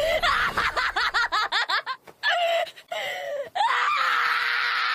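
Laughing and shrieking voices in quick bursts, then from about three and a half seconds in a steady rush of water poured from a bucket over a man, with a held cry over it.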